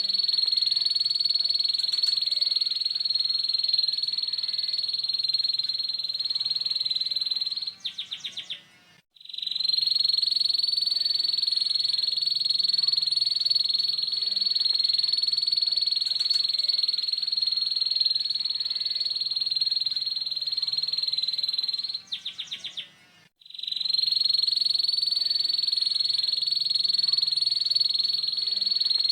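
Canary singing a long, rough, rapid 'ngeriwik' trill held at one high, steady pitch. Twice, about eight seconds in and again about twenty-two seconds in, it breaks into a few stuttering notes and a brief pause before the trill starts again.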